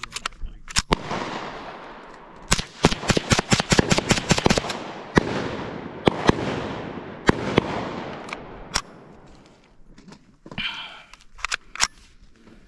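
Ruger 10/22 Takedown .22 semi-automatic rifle firing a long string of shots: two single shots, then about ten in quick succession over two seconds, then more spaced shots. Each crack is followed by an echoing tail.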